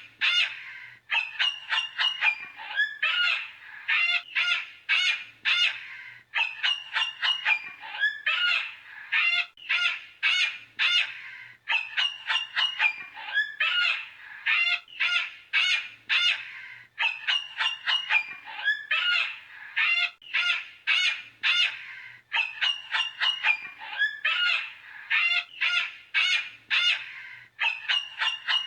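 Cockatoo calling: runs of rapid, harsh, squawking calls in clusters that repeat about every five seconds.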